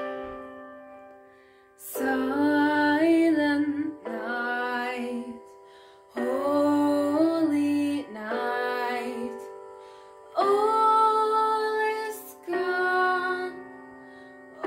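A young woman singing a slow song in phrases of about two seconds, over a soft instrumental backing whose held notes carry on in the gaps between phrases.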